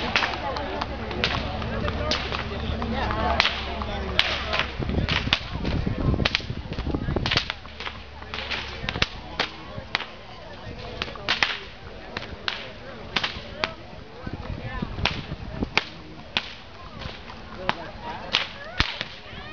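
Cow whips cracking over and over at an uneven pace, sharp cracks often coming two or three a second. This is the cracking of Florida cracker whips by mounted riders.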